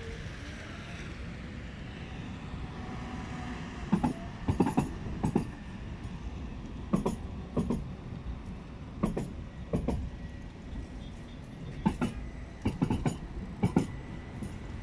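Tatra KT4D articulated tram rolling slowly over a track crossing, with a steady rumble and a faint motor whine at first. About four seconds in, its wheels start knocking over the gaps in the crossing rails: loud, sharp clacks in clusters of two or three as each bogie passes.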